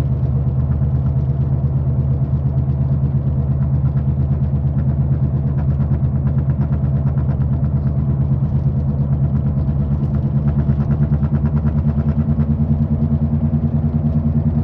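Worn car wheel bearing droning steadily, a low hum with a fast, even throb to it: the bearing is bad and needs replacing as soon as possible.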